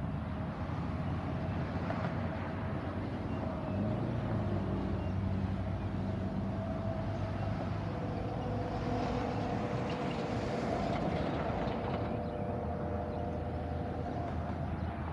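A freight train rolling by with a steady rumble, and a couple of steady whines over it, a second whine joining about halfway.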